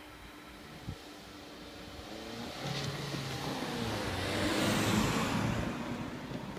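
A car drives past close by over the crossing: engine and tyre noise swell to a peak about five seconds in and then ease off, with a second car following. A short click sounds about a second in.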